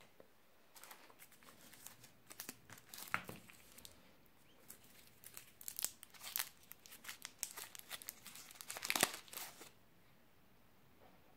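Plastic twist wrapper of a Nimm2 candy crinkling and crackling as it is untwisted and pulled open by hand. The crackles come and go unevenly and are loudest shortly before they stop, near the end.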